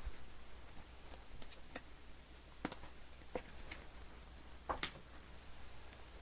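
Faint, scattered clicks and light taps of baseball cards and their holders being handled and set down, about six in all, the sharpest a little before the end, over a faint low hum.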